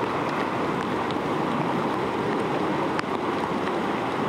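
Steady rushing of flowing creek water, with a few faint ticks, one about a second in and one near three seconds.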